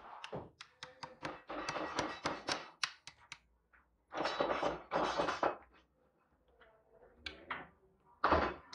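Hand wrench clicking and knocking on metal as bolts are tightened on the top of an electric water pump motor: sharp irregular clicks in quick runs, two denser stretches about four and five seconds in, and a few more clicks near the end.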